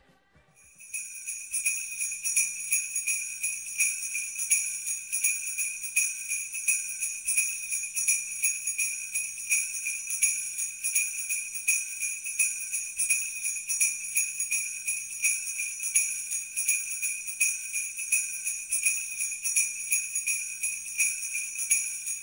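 Sleigh bells shaken steadily, a continuous bright jingling that starts about a second in.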